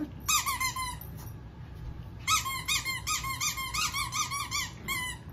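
A squeaky dog toy squeaked over and over in quick runs, each squeak rising and falling in pitch. A few come just after the start, a steady run of about a dozen follows from about two seconds in, and one more comes near the end.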